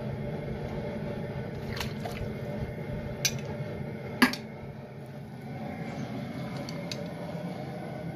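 Chilled ground pork being scooped and dropped into a steel kettle of hot broth: wet squishing plops, with two sharp knocks about a second apart near the middle, over a steady low rumble.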